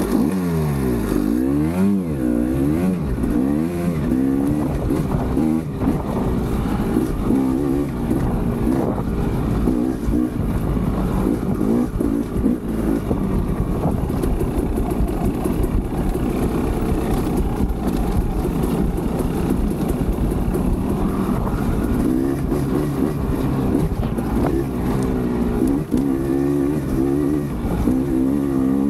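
2020 KTM 300 XC two-stroke single-cylinder engine, fitted with throttle-body injection, revving up and down. Quick rising and falling sweeps come over the first few seconds, then it keeps running under varying throttle.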